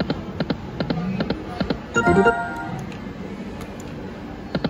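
Lock It Link video slot machine spinning: quick runs of reel-stop clicks as the reels land, with a short electronic chime of steady tones about two seconds in.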